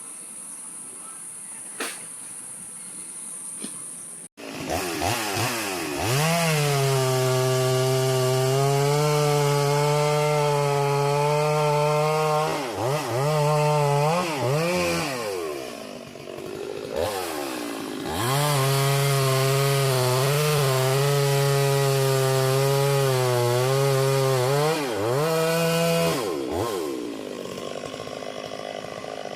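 Chainsaw revving and then running at steady full throttle in two long spells, cutting through a big tree, with the pitch swooping up and down as it is throttled between cuts. The first few seconds hold only a faint high whine, and the saw drops away to a low hiss near the end.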